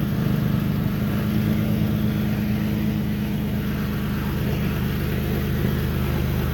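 Car engine idling steadily, heard close to a leaking exhaust joint at the front of newly fitted test pipes, where exhaust gas is escaping past the gaskets. The owner puts the leak down to flange bolts not tightened enough on the new gaskets.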